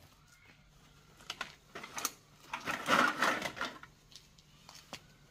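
Scrap and a sack being handled: scattered clicks and rattles, with a louder crinkling rustle about three seconds in.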